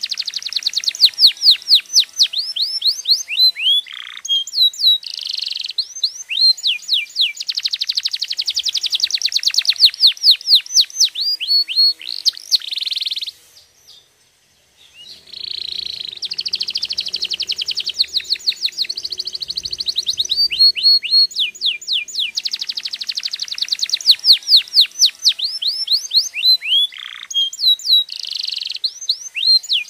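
Domestic canary singing: fast trills of rapidly repeated down-sweeping notes. The song breaks off for about a second halfway through, then resumes.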